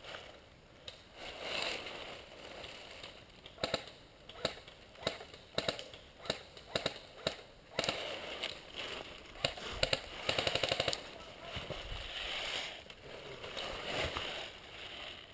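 Airsoft guns firing: scattered single sharp shots, then about ten seconds in a rapid full-auto burst lasting about a second.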